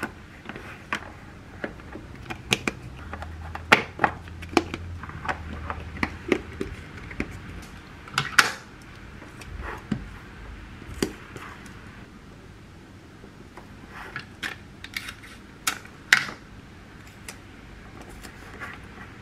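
Plastic food-storage containers being handled on a stone countertop, their lids pressed and snapped on: irregular sharp clicks and knocks, clustered most densely in the first half.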